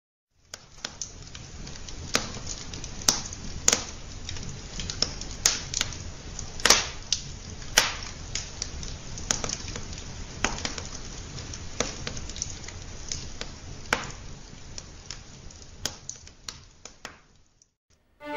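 Wood fire crackling: irregular sharp pops and snaps over a steady hiss and low rumble, fading out near the end.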